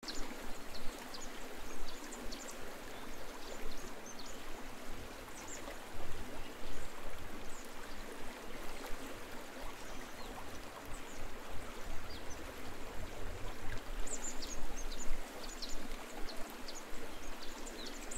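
A small stream running over stones, a steady rushing sound, with scattered short, high chirps of small birds that come thickest in the last few seconds.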